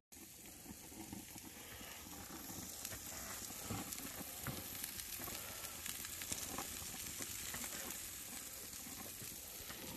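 Burger patties sizzling on a gas grill: a steady hiss with many small crackles and pops.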